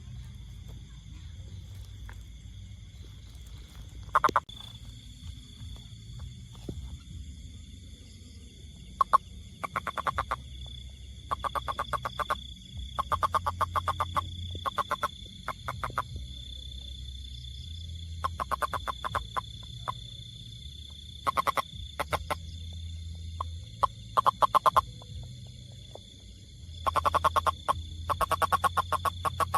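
A frog calling in short trills of rapid pulsed croaks, each about half a second to a second long, repeated at irregular intervals. A steady high tone runs behind.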